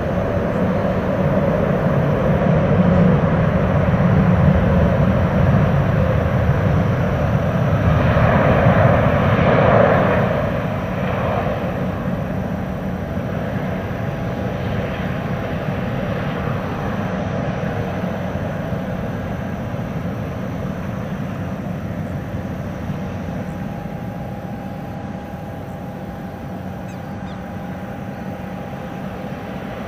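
Airbus A380's four turbofan engines running as the airliner rolls out and taxis after landing: a steady jet roar, loudest about a third of the way in, then slowly fading.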